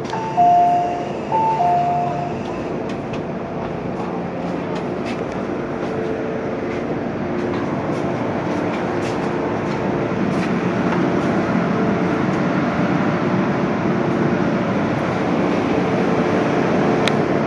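MTR M-Train door chime sounding twice as the doors open, each a higher note dropping to a lower one, followed by the steady rumble and hiss of the stopped metro train and passengers filing off.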